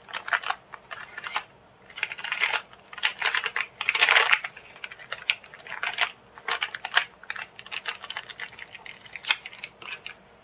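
Hands handling laptop parts and plastic: irregular small clicks and taps with short rustles, and a longer rustling scrape about four seconds in.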